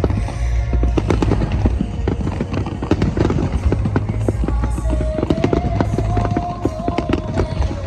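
Large aerial fireworks bursting in quick succession, with a deep rumble and many sharp reports, over music played through loudspeakers; a long held note enters about five seconds in.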